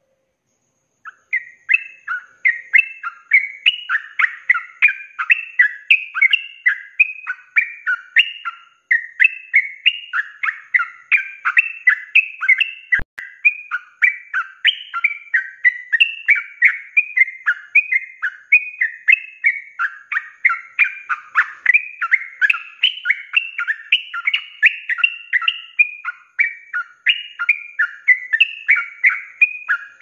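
Yellow-vented bulbul (trucuk) singing a fast, unbroken stream of warbled notes in the rolling 'ropel' style, starting about a second in.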